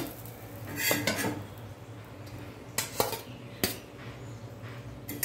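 Metal spatula clinking and scraping against an iron pan and a steel plate as omelette pieces are lifted across: about six sharp clinks spread through, over a steady low hum.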